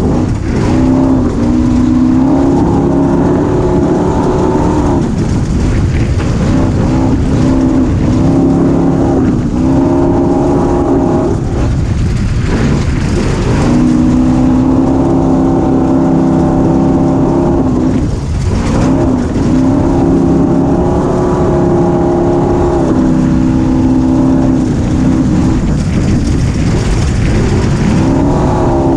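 A 250 cc engine runs hard under throttle on a ride. Its pitch climbs and holds steady at high revs, then drops briefly as the throttle is eased, about five, eleven, thirteen and eighteen seconds in, before climbing again. A dense rumble runs underneath.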